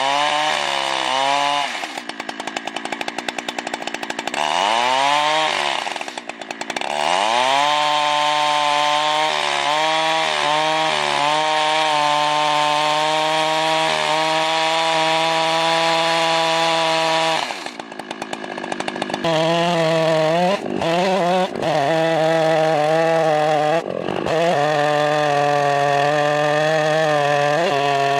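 Large two-stroke Husqvarna chainsaw driving a chainsaw mill through redgum hardwood, held at high revs through the cut. The revs fall to idle about two seconds in and again past the middle, then climb back up, with a few brief dips toward the end.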